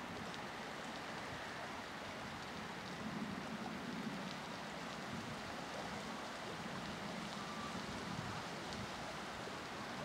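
Steady outdoor noise of wind and rippling lake water, with a few faint ticks.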